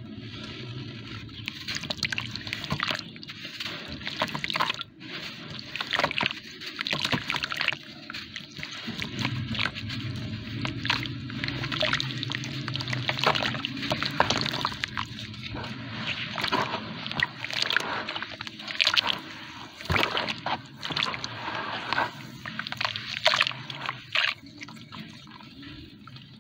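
Hands crumbling and squeezing yellow sand blocks into water in a plastic tub, the wet sand sloshing. Through it run many small, irregular gritty crackles.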